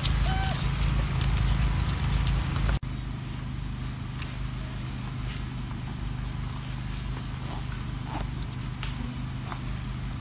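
Outdoor background with a steady low hum and rumble that drops in level at a cut about three seconds in; after it, a few faint clicks and rustles as a macaque paws at a fabric tote bag and its zip.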